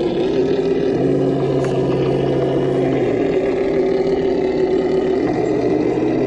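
Traxxas TRX-4 scale RC crawler driving, its electric motor and drivetrain giving a steady whine that steps up and down in pitch with the throttle.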